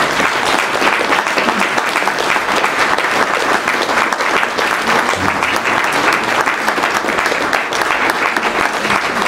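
Audience applauding steadily, a dense crackle of many hands clapping at once.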